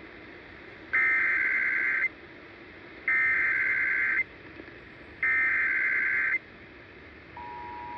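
Emergency Alert System header on NOAA Weather Radio: three identical bursts of data screech, each about a second long with a second's gap between them, over steady radio hiss. These are the SAME header codes that announce a National Weather Service warning. Near the end a steady two-tone attention signal begins.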